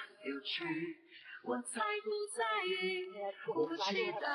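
A high, childlike female voice singing in short phrases, with no clear instruments.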